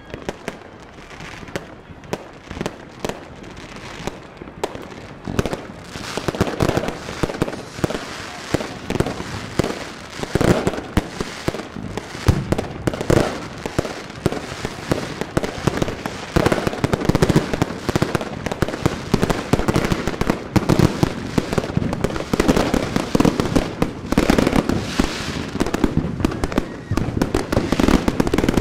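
New Year's Eve fireworks going off on all sides: a dense barrage of bangs and crackling that thickens about five seconds in and grows louder toward the end.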